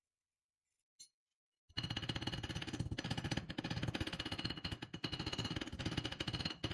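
Rapid, light hammer blows on a thin metal rod lying on a steel anvil, many strikes a second with a high ring from the anvil. The hammering starts a little under two seconds in, after a single click.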